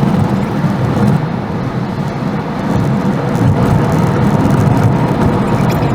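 Steady road and engine noise of a moving car, a continuous low drone.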